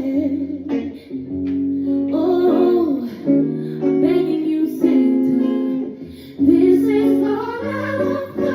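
A woman singing a slow song over guitar accompaniment, with long held notes.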